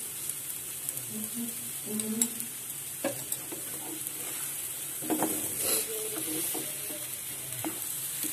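Spiced chickpeas, potato and tomato sizzling in a frying pan while a spatula stirs and scrapes them through the pan. The scraping is heaviest about five seconds in.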